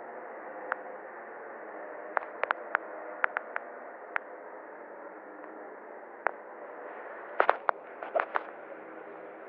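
Steady hiss with irregular sharp clicks and pops, coming in clusters about two seconds in and again near the end.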